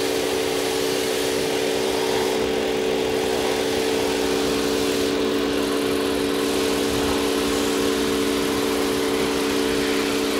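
Toyota Avalon engine idling steadily with an even, unchanging note, no longer misfiring after a carbon-fouled spark plug was swapped to another cylinder.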